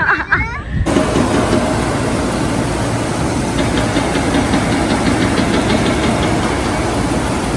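Steady vehicle engine noise that starts abruptly about a second in, with a faint rapid ticking in the middle.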